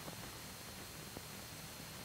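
Steady hiss and low hum of an old film soundtrack, with a thin high whine and a couple of faint clicks, about at the start and a second in.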